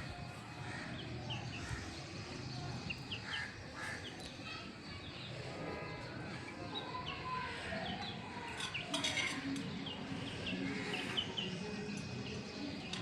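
Small birds chirping again and again in short high notes over a steady background hiss, with a few sharp clicks about nine seconds in.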